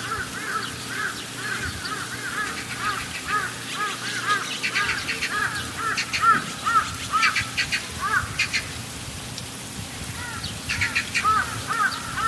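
Birds calling: many short, rapidly repeated chirps, with bursts of quick, higher twittering calls in the middle and near the end.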